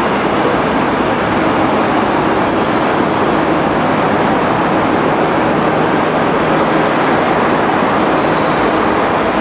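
Loud, steady vehicle rumble with a faint high whine from about two seconds in that lasts under two seconds.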